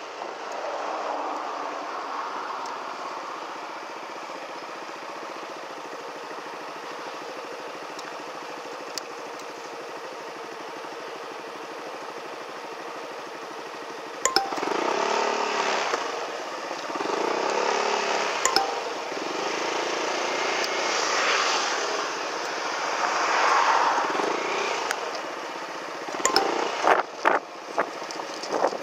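Motor scooter riding along a road: steady engine and road noise. From about halfway it grows louder, with the engine revving up and down, and a few sharp knocks and rattles come near the end.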